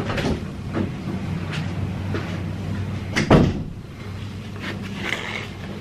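Protective paper wrap on a new iMac rustling and crinkling in short bursts as it is handled and loosened, with a dull thump about three seconds in.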